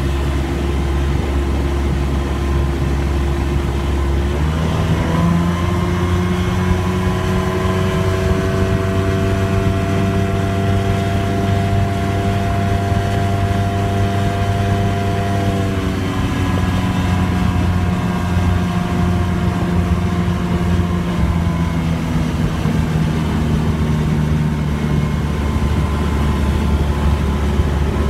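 1975 Evinrude 70 hp two-stroke outboard motor running with the boat under way, its engine speed rising about four seconds in, holding steady, then easing back down after about sixteen seconds. Above idle it runs cleanly, without the misfire the owner gets only at idle.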